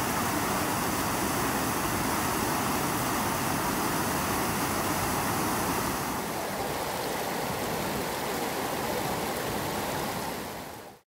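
Shallow creek water rushing over rocks in riffles, a steady noise that eases slightly about six seconds in and fades out near the end.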